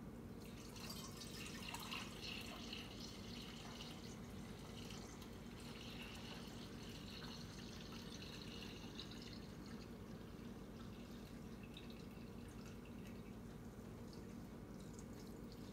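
Fresh cow's milk poured from a stainless steel milk can through a funnel and cheesecloth filter into a glass jar: a faint, steady trickle that is strongest in the first half and then tapers off, over a steady low hum.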